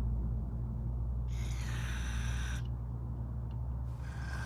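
Aerosol carburetor cleaner hissing out of the can in two spray bursts, the first just over a second long and the second starting near the end, as it is blasted through the small-engine carburetor's passages to flush out clogs and corrosion.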